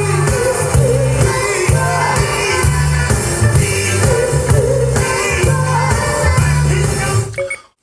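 Soul song with a singer and a heavy, repeating bass line, played back through Technics SB-6000 floor-standing loudspeakers. The music drops out briefly just before the end.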